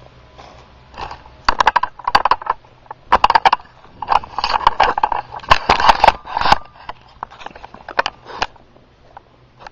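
Handling noise on a camcorder's microphone as the camera is picked up and moved: a run of loud, irregular knocks, clicks and scraping rustles, dying down to a few faint ticks about seven seconds in.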